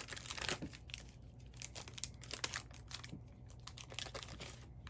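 Plastic cello wrapper of a trading-card pack being torn open and crinkled in the hands: a run of quick crackles, busiest in the first second, then quieter as the cards come out.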